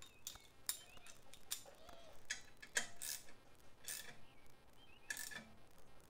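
Irregular light metallic clicks and scrapes as a baffle is fitted into the Miata's single exhaust tip by hand, with the sharpest clink about halfway through.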